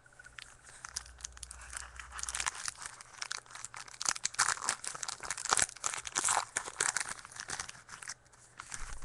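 A trading-card pack's wrapper being torn open and crinkled by hand, a dense crackle of tearing and rustling.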